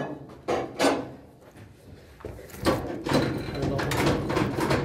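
Fabric-covered office cubicle partition panels being pushed and shifted by hand: two sharp knocks within the first second, then from a little past halfway a longer run of scraping and clattering as the panel is moved.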